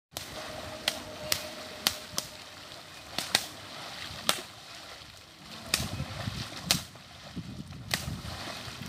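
Sticks slapping the shallow water of a flooded rice paddy: about ten sharp, irregular cracks, with splashing from wading in the water in the second half.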